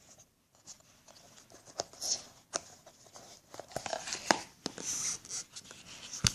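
Earphones and their cord being handled close to the microphone: scattered light clicks and rustling, with a sharper click near the end.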